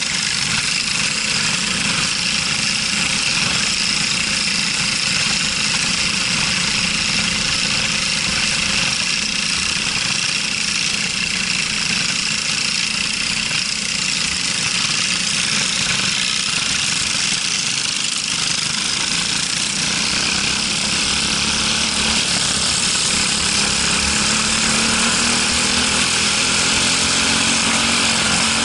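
Briggs & Stratton LO206 single-cylinder four-stroke kart engines running at low speed in a tight pack, then rising steadily in pitch over the last several seconds as the karts speed up.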